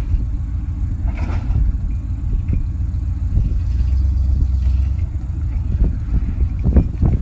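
A vehicle engine running steadily while a truck-mounted boom hoists a heavy log, with a short scrape about a second in and a few clanks near the end.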